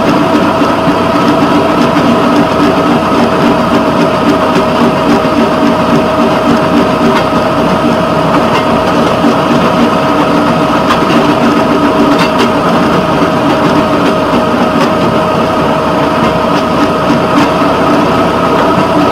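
Rail patrol vehicle running steadily along the track: a constant engine drone with a steady whine over the rumble of wheels on rail, and faint scattered ticks.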